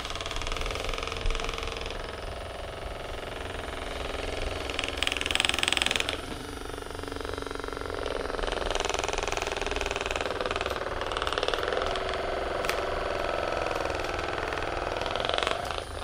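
Handheld percussion massage gun running, its head hammering rapidly against the lower back and buttocks. The sound is briefly louder and brighter about five seconds in, then shifts in tone as the gun is moved and pressed.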